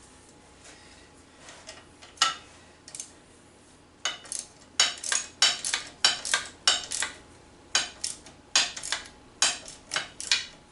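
Metal hand tools and parts clinking and tapping against each other: a single click about two seconds in, then a steady run of sharp clinks, two or three a second, from about four seconds in.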